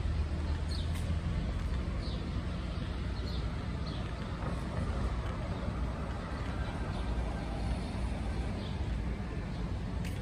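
Light street traffic: vehicles driving along a town street with a steady low rumble of engines and tyres.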